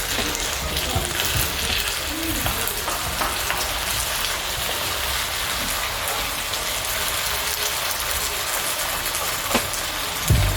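Food sizzling in hot oil in a pan, a steady hiss.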